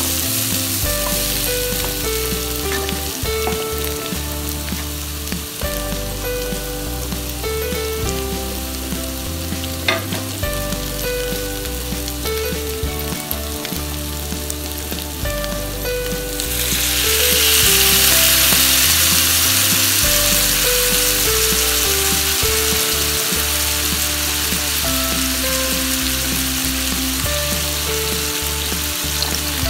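Pork belly pieces frying in oil in a nonstick wok, sizzling steadily while a wooden spatula stirs them, with one sharp knock about a third of the way in. A little past halfway the sizzle jumps suddenly louder and hissier as a dark liquid is poured into the hot pan.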